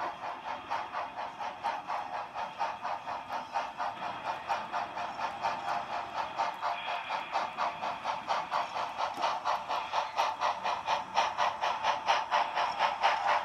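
Model Southern Pacific Daylight steam locomotive giving off a steady steam chuff, about four beats a second, growing louder as it runs close by, then cutting off suddenly at the end.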